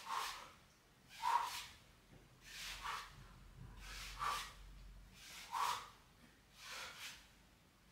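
A man breathing hard in a steady rhythm, six forceful breaths about one and a half seconds apart, from the exertion of a set of tuck front lever pull-ups.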